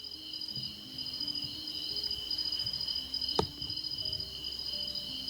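Crickets trilling steadily in a night chorus, at two pitches. One sharp click cuts through about three and a half seconds in.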